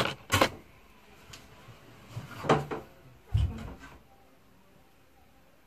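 A few short knocks and rustles from hands working a curly wig and hairpins close to the microphone, bunched in the first four seconds.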